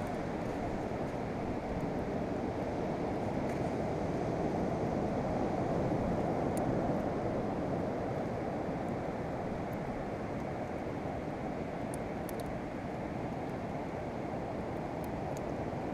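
Steady low rush of beach surf and wind, swelling slightly midway, with a few faint high ticks.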